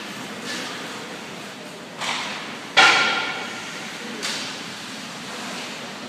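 Sharp cracks of a hockey puck and sticks striking in an ice arena, three in all, the middle one the loudest and ringing briefly, each echoing in the hall over a steady background hum of the rink.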